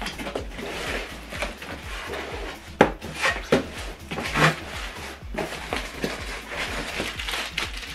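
Cardboard box flaps and packaging being opened and handled: rustling, scraping and irregular knocks, with one sharp knock about three seconds in as the loudest.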